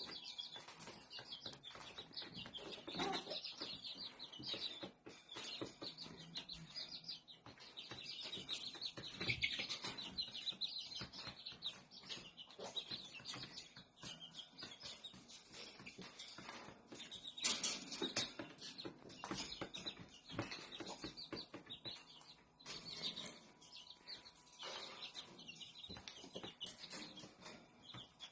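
Green parrot chattering and chirping: a long run of quick, shifting high calls broken by short clicks, with louder bursts at a few points.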